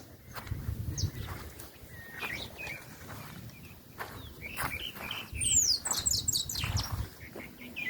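Shiny cowbirds singing: scattered high chirps, then a louder burst of high sliding whistles and quick notes about five and a half seconds in.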